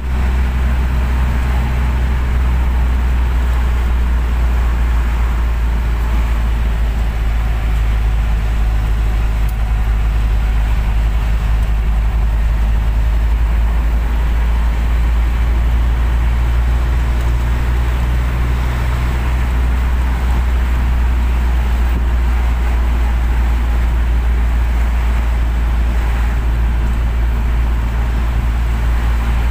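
Van engine and road noise heard from inside the cabin while driving at a steady speed: a loud, unchanging low rumble with a steady hum.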